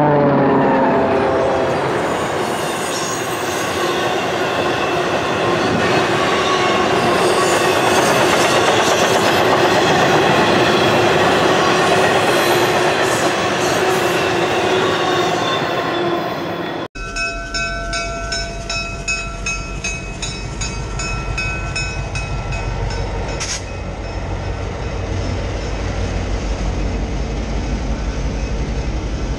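A passenger train passing at speed. Right at the start a horn fades out, falling in pitch, followed by a steady rush of wheels on rail. About seventeen seconds in, the sound cuts abruptly to a quieter, steady running sound with a fast low pulsing and some steady tones.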